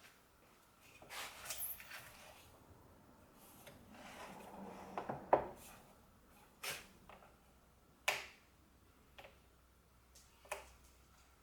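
Quiet handling sounds at a workbench: a few sharp knocks and clicks about a second or so apart, with faint rustling near the start and in the middle. No saw motor is running.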